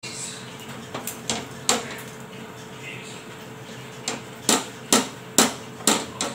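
Sharp clicking taps: a few scattered ones, then a steady run of about two a second from around four seconds in, as a paratha is pressed and patted on a hot iron tawa.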